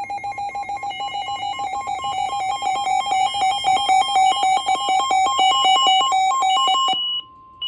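NOAA weather radio's alert alarm beeping rapidly, about six pulsed beeps a second in a warbling pattern, signalling an incoming severe thunderstorm warning. It cuts off abruptly near the end, leaving a faint steady alert tone.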